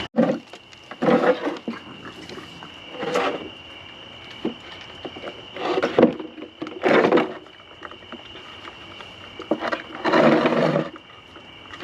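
Wild raccoons growling and snarling in several short, separate bursts.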